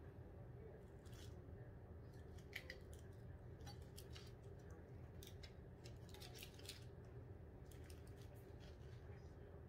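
Kitchen knife cutting into a peeled ripe pineapple: faint, short, irregular slicing strokes, over a steady low hum.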